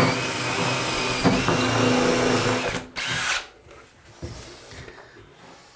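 DeWALT cordless drill running steadily, stopping just under three seconds in, followed by a brief second run of the motor.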